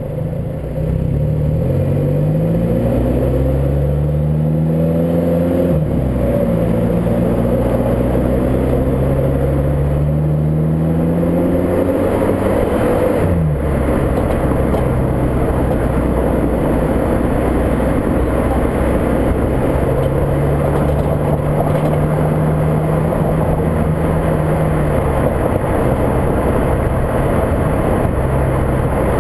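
VW Mk5 Golf GTI's turbocharged 2.0-litre four-cylinder engine pulling up through the gears. Its pitch climbs, then drops at upshifts about six and thirteen seconds in, and after that it holds fairly steady at cruise, under heavy wind noise.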